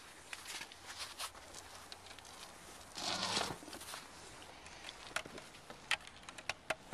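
Scattered small clicks and light rustling, with one louder rustle lasting about half a second about three seconds in.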